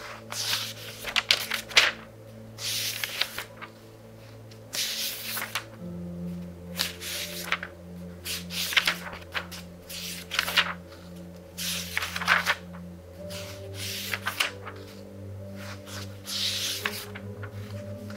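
Pages of a very thick book, a couple of thousand pages, turned quickly one after another: each turn is a brief papery rustle and swish, roughly one every second or two. Soft music with low held notes plays underneath.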